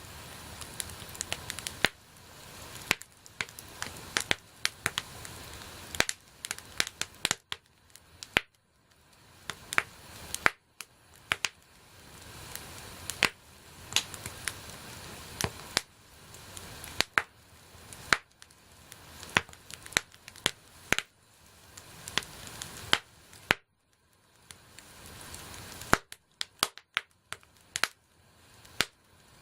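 Wood campfire crackling: irregular sharp pops and snaps over a soft hiss that swells and drops away every couple of seconds.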